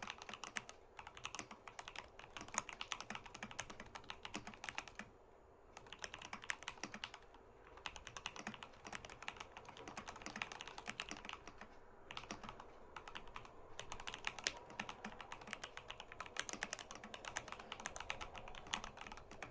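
Fast, continuous typing on a Vortex PC68 mechanical keyboard with Gateron Oil King linear switches, with a few brief pauses, the longest about five seconds in.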